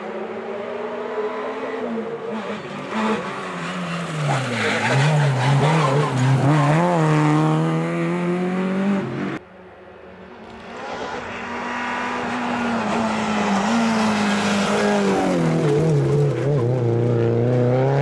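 Renault Clio RS N3 rally cars at speed on a tarmac stage: the engine revs up and drops back again and again through gear changes and braking for corners, with some tyre squeal. The first car's sound cuts off abruptly about halfway through, and a second car's engine builds up as it approaches.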